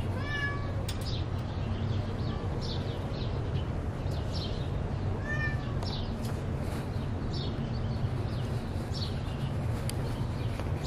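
A house cat meows twice, about five seconds apart, over a steady low hum and a run of short, high chirping notes.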